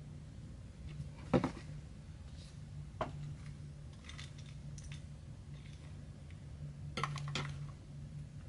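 Light clicks and taps of makeup palettes and brushes being handled, the loudest a sharp knock about a second and a half in and a quick run of clicks near the end, over a steady low hum.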